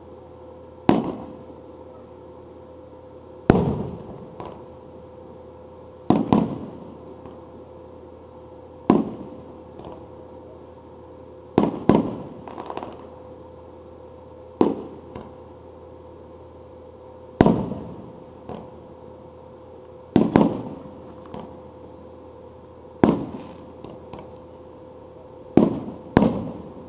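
Aerial fireworks shells bursting one after another: about ten sharp reports, one every two to three seconds, several in quick pairs, each trailing off in an echo, over a faint steady hum.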